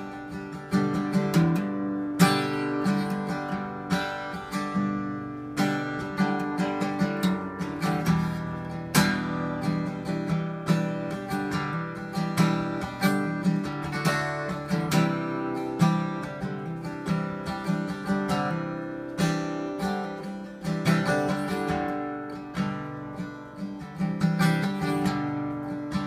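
Acoustic guitar strumming chords in a steady rhythm.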